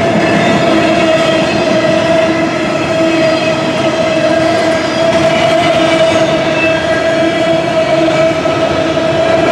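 A freight train of auto rack cars rolling past at close range: steady wheel and rail noise, with a steady ringing tone held over it.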